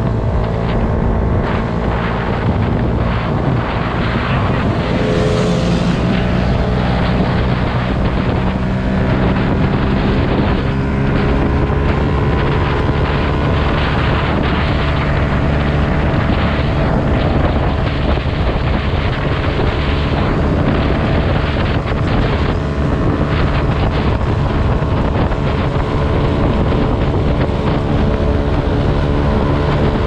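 Honda CBR250RR motorcycle engine running steadily under way, heard from the bike with heavy wind noise buffeting the microphone.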